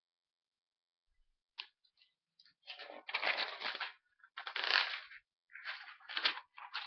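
Paper rustling as pages of a spiral-bound notepad are handled and flipped close to the microphone, in several bursts of a second or so after a short silence.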